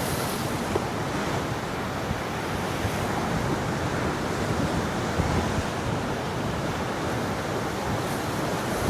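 Sea waves washing onto the shore, with wind on the microphone, a steady rushing noise.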